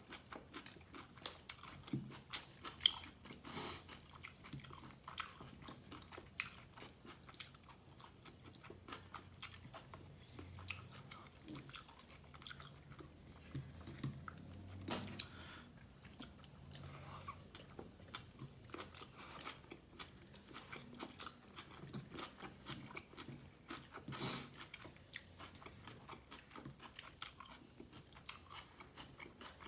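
Close-miked chewing and biting of a person eating beef biryani (tehari), with wet mouth clicks and occasional soft crunches at an irregular pace.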